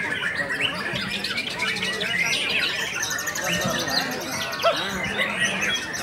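Dense chorus of many caged songbirds singing at once, rapid overlapping whistles, trills and chirps, with a white-rumped shama singing among them.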